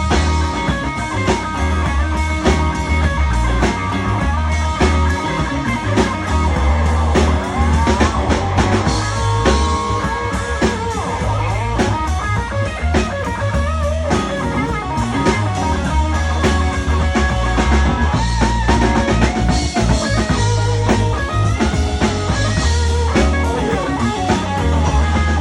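Electric guitar solo with many bent notes, played over a band's drum kit and bass.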